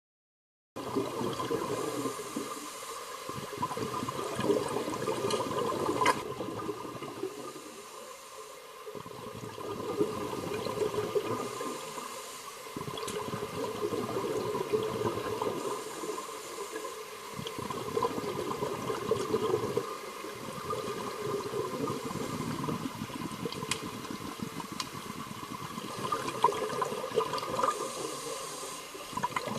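Aquarium water bubbling and churning, rising and falling in waves. It starts abruptly about a second in.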